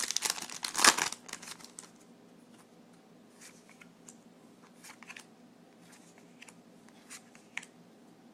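Foil booster-pack wrapper tearing open and crinkling for about the first second, then faint, scattered rustles and clicks of trading cards being slid and flipped.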